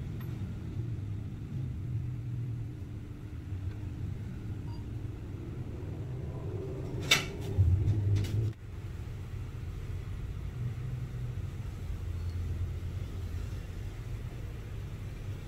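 Steady low rumble with handling noise from resin 3D printer parts: one sharp click about seven seconds in, then about a second of louder knocks.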